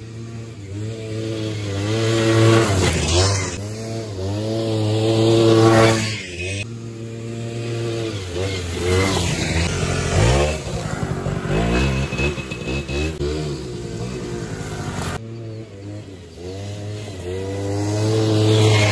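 1994 Suzuki LT80 Quadsport's small two-stroke single-cylinder engine revving up and falling back over and over as the quad is ridden, growing louder each time it comes close.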